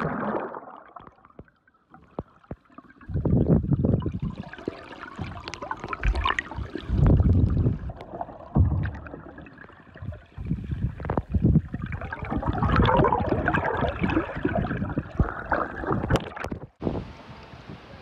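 Seawater heard through a camera held underwater: muffled sloshing and gurgling that comes in irregular surges, with scattered sharp clicks. Near the end the sound breaks off suddenly.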